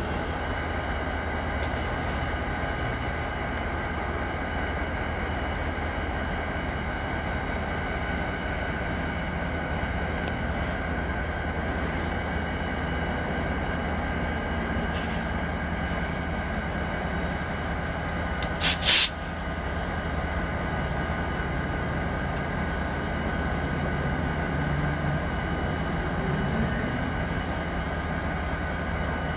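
Diesel-electric locomotives, a CN EMD SD60F and SD40-2W, running with a steady engine drone and a steady high whine over it. A brief loud burst of noise comes about two-thirds of the way in, and the engine note rises briefly near the end.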